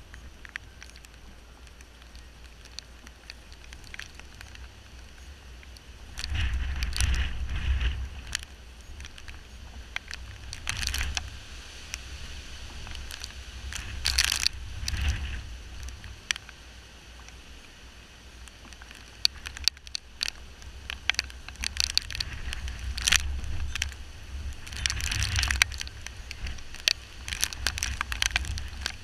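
Tropical-storm wind buffeting the camera's microphone, rising and falling in gusts, with raindrops ticking and crackling against the waterproof camera housing.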